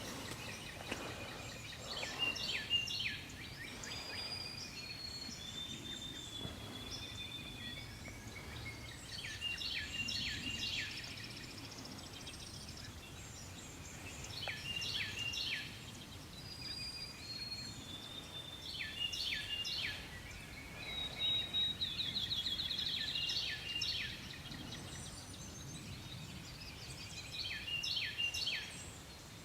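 Wild songbirds singing. One bird repeats the same short phrase of quick sharp notes every five seconds or so, and others add thin high whistles and a brief rapid trill about two-thirds of the way through.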